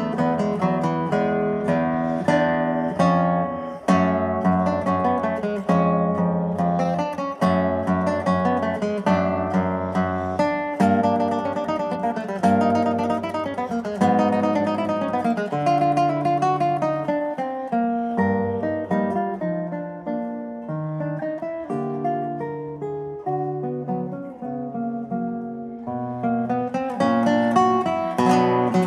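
Solo classical guitar played fingerstyle, its nylon strings plucked in a continuous flow of quick melodic notes over chords and a bass line.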